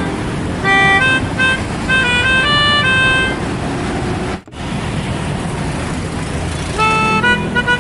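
Bus 'telolet' horn, a set of multi-tone air horns playing a quick tune of short, high notes over the low running of the bus's engine. The tune stops about halfway through, after a brief dropout, and starts again near the end.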